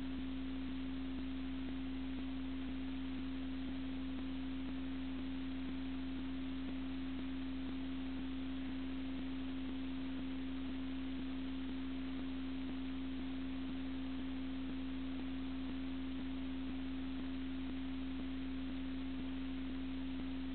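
A steady electrical hum, one unchanging tone, over constant hiss: the background noise of an old home-movie transfer, with no other sound.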